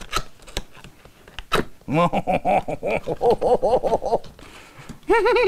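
A man giggling and squealing with excitement: a rapid string of high, wordless giggles lasting about two seconds, then a drawn-out squeal near the end. Before that, a few sharp clicks and scratches of fingers picking at the tape on a cardboard box.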